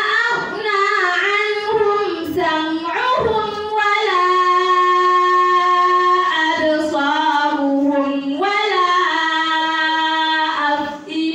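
A woman chanting Qur'anic recitation in melodic tajwid style: long held notes joined by ornamented, wavering pitch glides, with brief pauses for breath.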